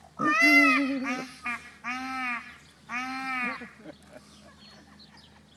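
Male Indian peafowl calling loudly: one long call, a short note, then two more calls, the first the loudest.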